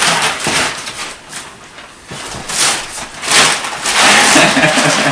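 Plastic wrapping on a vacuum-packed mattress rustling and crinkling in several short bursts as it is handled.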